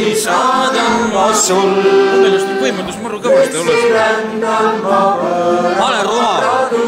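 A small group of amateur singers, a man and women, singing a song together with held notes.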